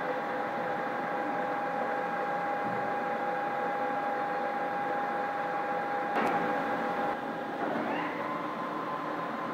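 Köping S8C engine lathe running, its gear train giving a steady whine. About six seconds in a control lever is thrown with a clunk, and the whine changes, rising to a new steady, higher pitch near the end.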